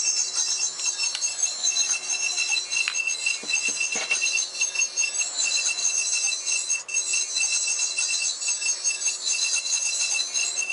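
Tricorder sound effects from the small speaker of a GMProps electronics upgrade board in a prop Star Trek tricorder: a steady stream of rapidly pulsing high electronic beeps and chirps, with a few light handling clicks.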